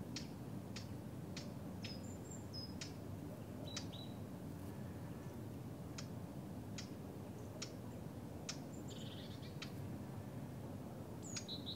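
Faint outdoor ambience: a few short, high bird chirps over a steady low rumble, with sparse sharp clicks roughly once a second.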